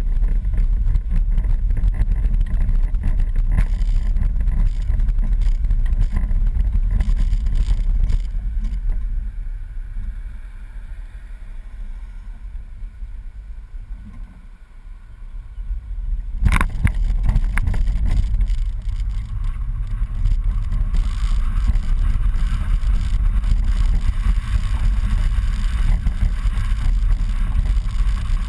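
Wind rumble and road noise on a boat being towed on its trailer. It eases off while the tow vehicle slows around the middle and builds again after a sharp knock about sixteen seconds in.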